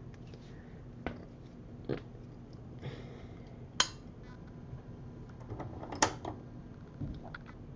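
A few light, irregular clicks and taps, spaced a second or more apart, the sharpest a little before the middle and about three quarters of the way in, over a low steady hum.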